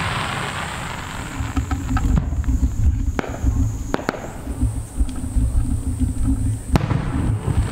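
Aerial fireworks shells bursting. A crackling fizz from a spent burst fades in the first second, then sharp bangs come about three seconds in, again a second later, and once more near the end, over a low rumble.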